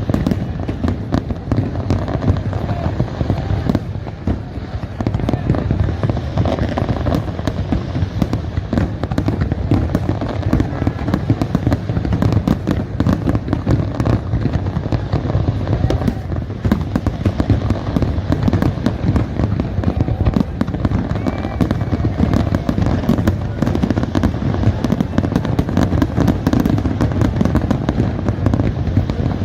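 Beach fireworks display in a dense, unbroken barrage of overlapping bangs and crackles, many shots a second with no pause.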